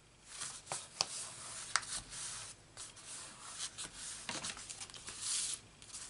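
Folded cardstock greeting card being handled, closed and slid flat on a grid craft mat: paper rustling and rubbing, with two sharp clicks about a second in and shortly after.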